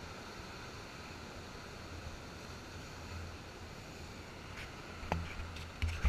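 Surf breaking and washing over a rocky shore, heard muffled through a GoPro's waterproof case as a steady wash of noise with a low rumble. Near the end come a few sharp, loud knocks.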